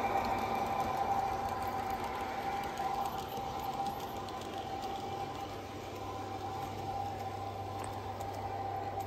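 Garden-railway model train, an electric locomotive hauling coaches, running on the track: a steady motor whine over a light wheel rumble that slowly fades as the train draws away.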